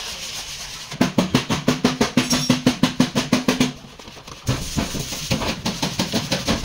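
Background music with fast, even drumming, like a drum roll over a held low note. It breaks off briefly past the middle and then picks up again.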